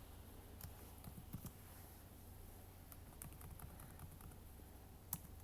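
Faint, sparse light clicks and taps over quiet room hum, with one sharper click near the end.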